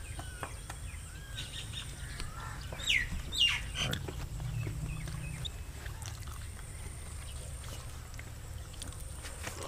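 Birds calling outdoors a few times, with two louder downward-sliding calls about three seconds in, over a low steady rumble.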